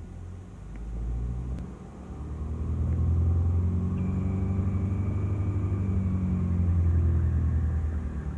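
F56-generation MINI running with a low rumble that swells about a second in, dips briefly, then holds steady and strong. A faint high whine joins about four seconds in. The recording was made to capture an abnormal noise from the car.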